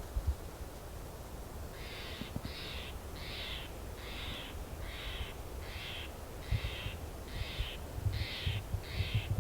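A bird calling over and over in a steady series, about one and a half calls a second, starting a couple of seconds in. Low thumps of wind or handling on the microphone come toward the end.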